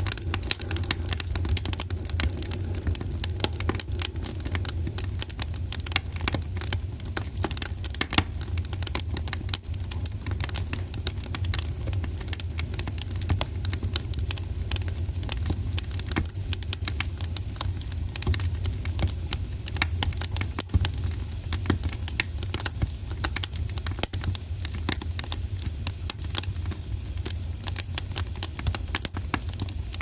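Wood campfire crackling and popping, with many irregular sharp snaps over a steady low rumble.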